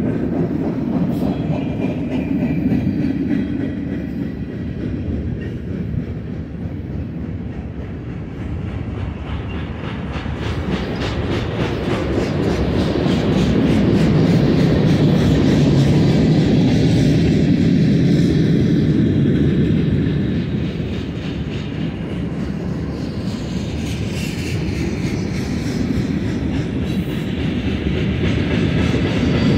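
Freight cars of a long manifest train rolling past: a steady rumble of steel wheels on rail with clickety-clack over the joints, swelling louder midway and easing again.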